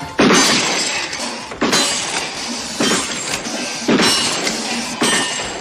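Wild Gunman arcade game gunshots as the light gun is fired: five sharp cracks a little over a second apart, each fading away.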